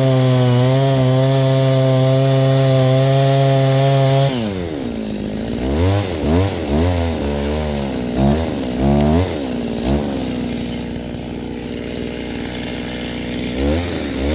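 Stihl chainsaw held at full throttle in the cut for about four seconds as the last corner of the back cut is taken out to fell the tree. The throttle then drops suddenly, followed by several quick revs and a steady idle, with one more rev near the end.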